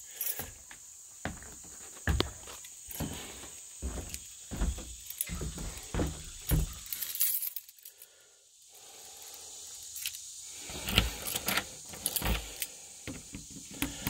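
Footsteps on wooden porch boards, a step roughly every half second, then after a short pause keys jingling and clicking at a door lock.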